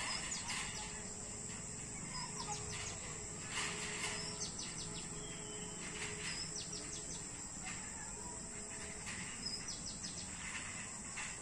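Rural wetland ambience: small birds chirping in short quick runs every few seconds over a steady high insect drone.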